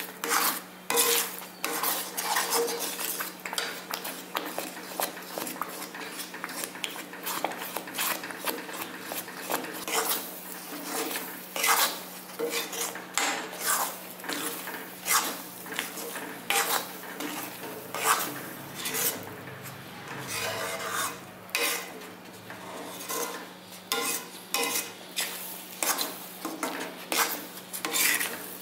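Metal spatula stirring and scraping thick pearl millet halwa around a metal kadai, in repeated strokes about one or two a second.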